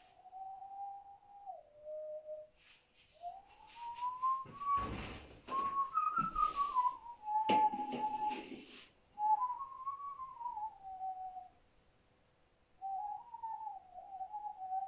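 A man whistling a slow, wandering melody in separate phrases, each a single clear note gliding up and down. Thumps and rustles of movement come in the middle.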